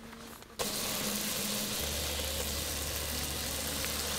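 Camp cooking over a portable gas stove: a loud, steady hiss that cuts in abruptly about half a second in, with a low steady rumble joining a little over a second later.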